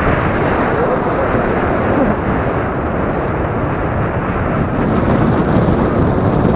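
Loud, steady rush of wind over the microphone from the airflow of a tandem paraglider in flight.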